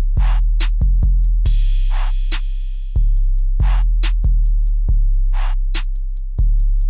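Background music: a drum-machine beat with deep sustained bass notes, quick hi-hat ticks and a snare hit every couple of seconds, with a cymbal crash about a second and a half in.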